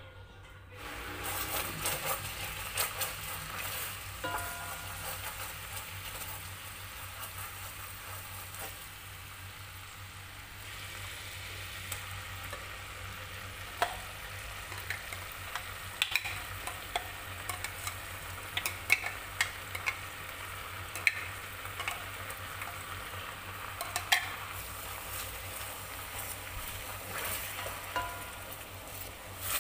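Ground spice paste frying in a pot, with a steady sizzle as it is stirred. A wooden spatula knocks lightly against the pot now and then.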